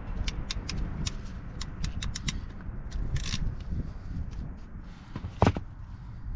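Small sharp clicks and snips of wire and hand tools being worked, with a short hiss around the middle and one louder snap near the end, over wind rumbling on the microphone.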